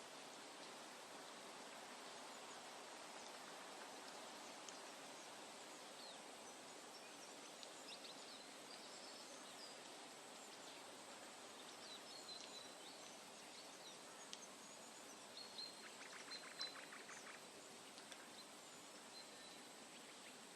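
Faint woodland ambience: a steady hiss with scattered high, short bird chirps through the middle and later part, and a brief fast rattling trill about three-quarters of the way in.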